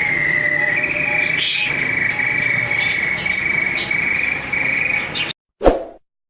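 A high, rapid, unbroken trill held at one pitch for about five seconds, then cut off abruptly, followed by a single short knock.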